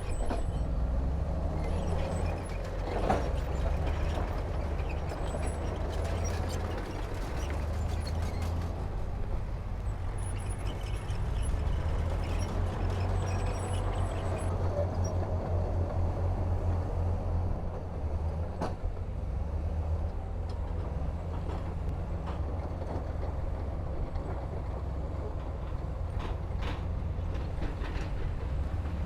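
Heavy diesel earthmoving machinery running steadily with a low engine rumble, with a few sharp clanks of metal and rock, one a few seconds in, one past the middle and a couple near the end.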